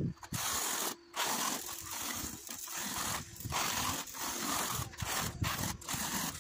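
Notched steel trowel scraping through wet tile adhesive on a concrete floor, a rough wet scraping in repeated sweeping strokes with a short pause about a second in.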